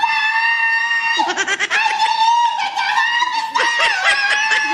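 A woman singing very high in a mock-operatic style: three long held notes of a second or more each, with short warbling breaks between them.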